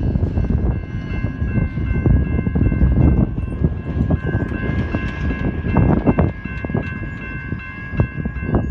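Freight train of autorack cars rolling by, its wheels and cars giving a heavy rumble with occasional sharp clicks. A steady high-pitched ringing tone sits over the rumble. The sound eases slightly as the train draws away.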